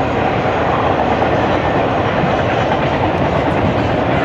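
Freight train passing: Canadian Pacific and Iowa, Chicago & Eastern diesel locomotives pulling a string of autorack cars, their engines and the wheels on the rails making a steady, loud rush of noise.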